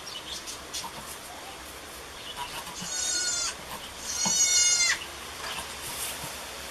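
A newborn goat kid bleating twice, high-pitched, the second bleat louder and a little longer, about three and four seconds in.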